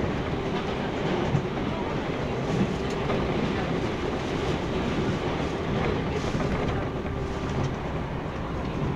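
Running sound of a JNR 165 series electric multiple unit heard from inside a passenger car at speed: a steady rumble of wheels on rail with a constant hum. A few faint clicks from the rail joints come through it.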